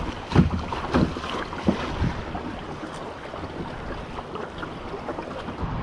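Canoe being paddled through choppy river water: paddle splashes and water slapping against the hull, with wind buffeting the microphone. A few sharp splashes come in the first two seconds, then a steadier wash of water and wind.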